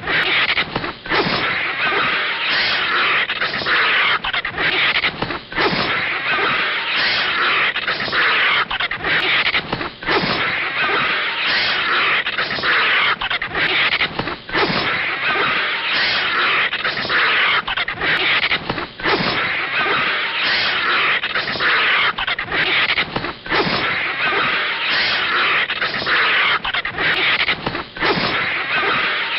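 Anime sound effects of a snake and a vulture fighting: a dense, hiss-like noise that breaks off briefly about every four and a half seconds as the short scene loops.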